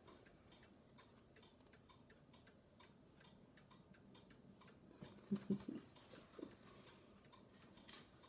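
Near silence with faint, regular ticking, several ticks a second. A few short, soft low knocks come about five seconds in.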